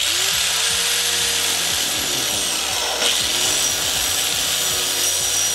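Electric angle grinder running and grinding through the metal parking-brake cable bracket, with a steady high whine. It gets louder about three seconds in as the disc bites into the metal.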